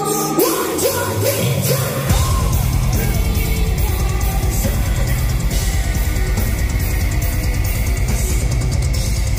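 Metal band playing live: a sung vocal line, then the full band comes in about two seconds in with heavy guitars and fast, dense kick drumming.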